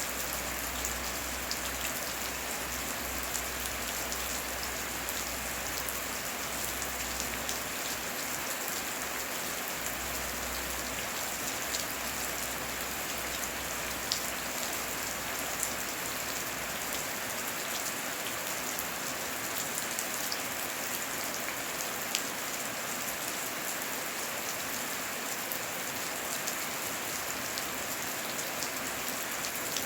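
Steady heavy rain, with many separate drops ticking among the constant hiss. A low rumble sits under it for about the first half and then stops.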